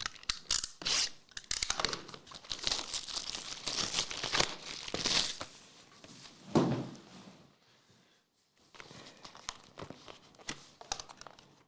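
Plastic wrapping crackling as it is torn and crinkled off a trading card box, with a pause a little past the middle before more crinkling near the end.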